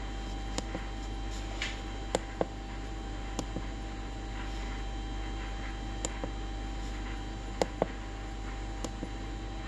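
Sharp clicks of the RZNC-501 CNC controller's keypad buttons being pressed to step through its setup menus, about a dozen scattered presses, some in quick pairs. A steady low electrical hum runs underneath.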